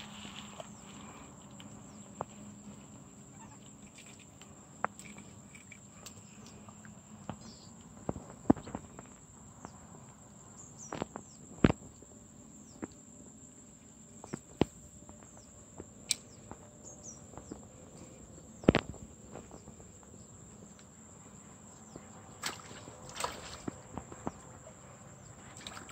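Quiet waterside ambience with a steady high insect drone, broken by scattered clicks and taps from fishing tackle being handled close by, three of them sharp and loud, and a few short chirps.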